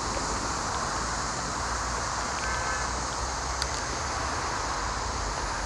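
Steady outdoor background noise of wind and a distant traffic hum, with a brief faint chirp a little past halfway and a single sharp click soon after.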